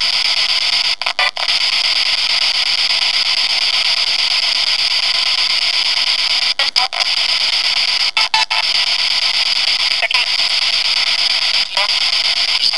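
Spirit box sweeping through radio stations: steady loud static hiss broken every few seconds by brief dropouts and short snatches of broadcast sound as it jumps from station to station.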